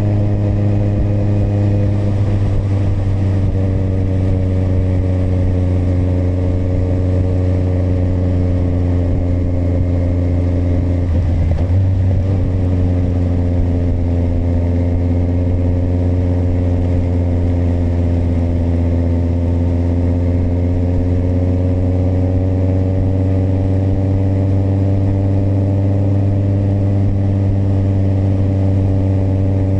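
Kawasaki motorcycle engine running on the road, its note easing down over the first ten seconds, breaking briefly just before halfway, then climbing slowly through the rest.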